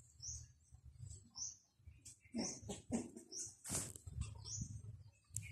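Small birds chirping in short high notes, about two a second, with a few louder, lower squeaky calls about halfway through and a brief scratchy rustle just after.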